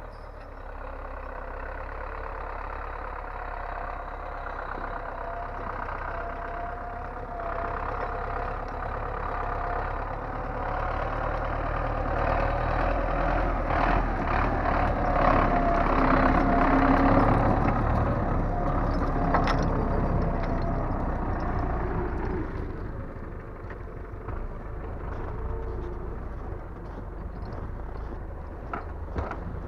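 Diesel engine of a timber crane running and driving its hydraulic loader while logs are handled and cut. The sound builds to a harder run with a wavering whine through the middle stretch, then eases back to a steadier run near the end.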